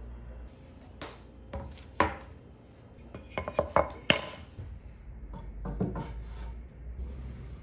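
Pine shelf boards being handled on a table: a run of sharp wooden knocks and taps, loudest about two seconds and four seconds in.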